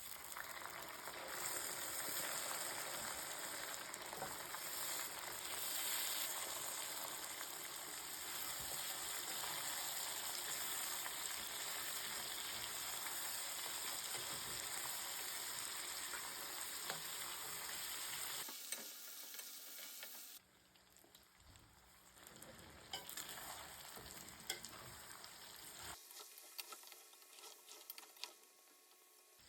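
Food sizzling in hot oil in a cooking pot, with stirring and scraping. The sizzle is loud and steady for most of the time, then drops to a quieter sizzle with scattered clicks about two-thirds of the way in.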